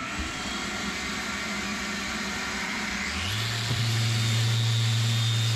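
Random orbital sander spinning up about three seconds in and running steadily as it sands out filled gouges in a meranti trim piece, over a steady rushing noise heard from the start.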